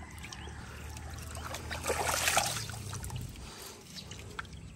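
Shallow pond water splashing and trickling as a hand moves through it, with the loudest swish about two seconds in.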